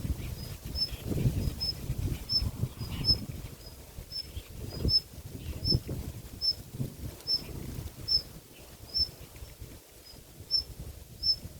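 Short high chirps repeating evenly, about one and a half a second, from an unseen small creature, over irregular low rustling and bumps.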